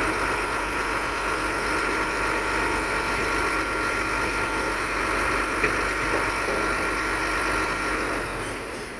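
Diesel engine of heavy earthmoving machinery running steadily, with a thin steady high whine over the engine noise; it eases off slightly near the end.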